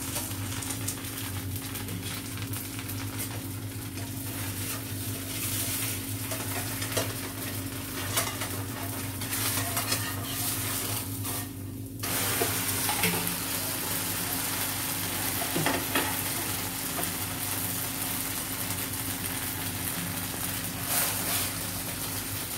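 Dosa batter frying in oil in a nonstick pan, a steady sizzle with a few light scrapes and taps of a steel spatula. The sizzle drops out briefly a little before halfway, then carries on.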